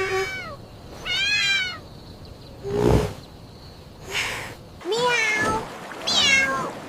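Cats meowing: a series of about five separate meows, each rising and falling in pitch, with a short noisy burst about three seconds in.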